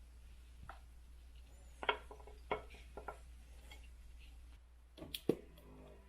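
Scattered light knocks and clinks, about eight at irregular spacing, some with a short ring, over a low steady hum. The last few come close together near the end.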